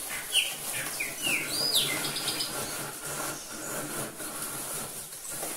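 A bird chirping: a quick run of short, sweeping chirps in the first two seconds, over a faint steady hum.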